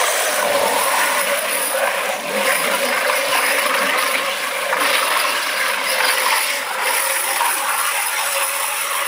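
Radio-controlled scale truck's electric motor and geared drivetrain running hard, a steady mechanical whine and gear noise, with its tyres spinning and churning through deep wet mud.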